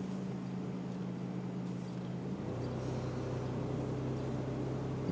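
Car engine running at low speed, heard inside the cabin as a steady low hum; its note shifts to a slightly different pitch about halfway through.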